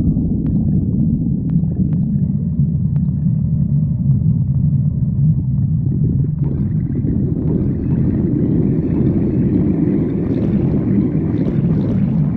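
Hungry stomach growling: a continuous low rumble that grows fuller and brighter from about halfway through, with a few faint clicks in the first few seconds.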